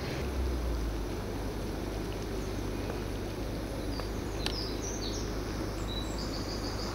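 Steady hiss and roar of a small canister gas camping stove burning under a frying pan, with a faint tap or two of a wooden spatula in the pan. Birds chirp from about four seconds in.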